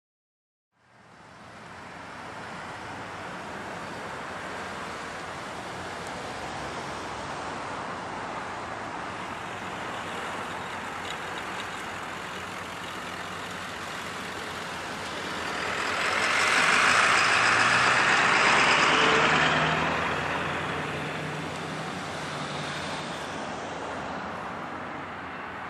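Steady road traffic noise, swelling as a motor vehicle drives past close by about two thirds of the way through.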